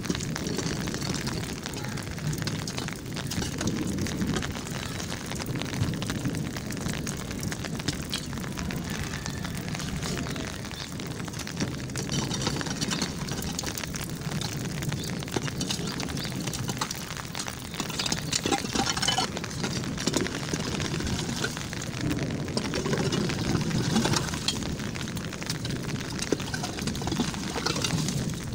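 A short broom sweeping rainwater across a wet path, scratchy strokes over a continuous rushing noise.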